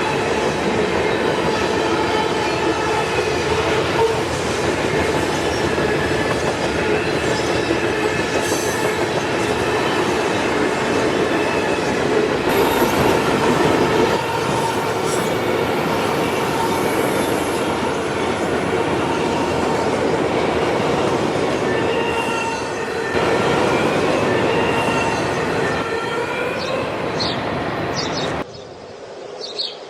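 Loud, steady rumbling with several sustained high squealing tones running over it, like metal wheels grinding. Near the end it cuts off abruptly to a quieter background with short high chirps.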